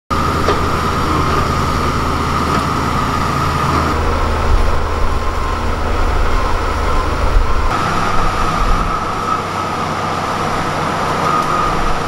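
LiuGong B160C crawler bulldozer running as it pushes mud: a steady low diesel rumble with a constant high whine over it. The sound changes abruptly about four and eight seconds in.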